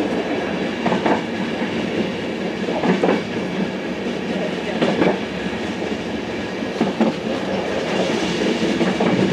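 Train running steadily along jointed single track, heard from inside at the front. A continuous rumble carries a wheel click over a rail joint about every two seconds.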